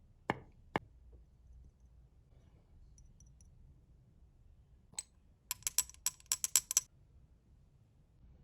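Sharp clicks: two about half a second apart at the start, a single one about five seconds in, then a quick run of about ten clicks over a second and a half.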